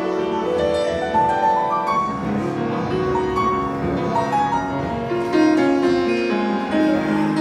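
Grand piano played solo in a warm-up: flowing runs of notes over held lower chords.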